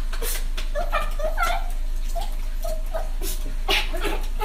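Small toy poodle whining in a string of short, high-pitched whimpers, over a low steady hum.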